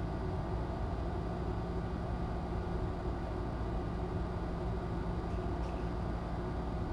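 Steady low hum and hiss of room noise picked up by a live-cam microphone, with a faint tick or two about five and a half seconds in.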